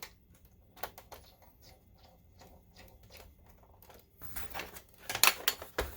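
A small screw being driven by hand into a projector's plastic lamp door: a run of faint, irregular light ticks, then louder clicks and knocks of the plastic case being handled in the last couple of seconds.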